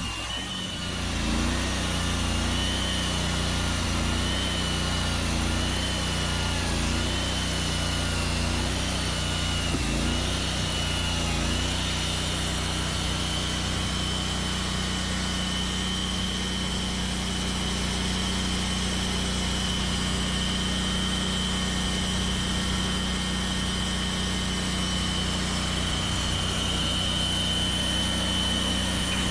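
The engine of a Norwood Lumbermate Mark IV portable band sawmill running steadily, with a high whine that wavers for the first dozen seconds or so and then holds at an even pitch.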